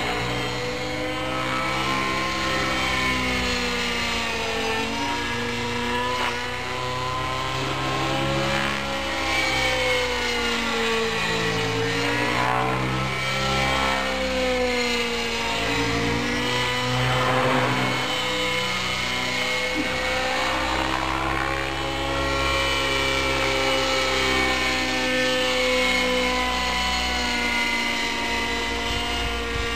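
Vibe 90 radio-controlled model helicopter in flight, its engine and rotor whine gliding up and down in pitch as it manoeuvres, with a couple of louder swells as it passes near.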